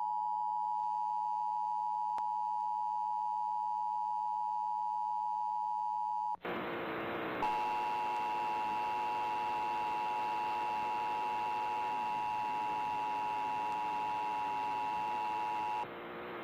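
Emergency Alert System attention signal: a steady two-tone alert that cuts off about six seconds in. After a second of hiss it resumes over a hissy background and stops about a second before the end. It is the alert tone that opens a national EAS test message.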